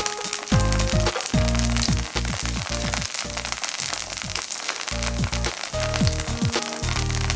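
Food sizzling and crackling as it fries in a pan, under background music with deep, downward-sliding bass notes.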